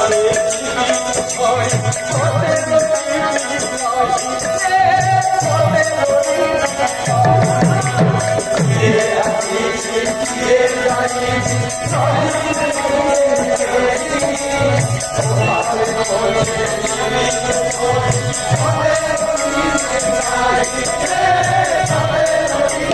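Kirtan music: voices singing together over a drum beating a repeating rhythm, with small hand cymbals or jingles clashing steadily throughout.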